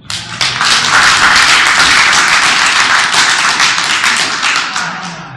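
A small crowd applauding loudly, starting all at once and tapering off near the end.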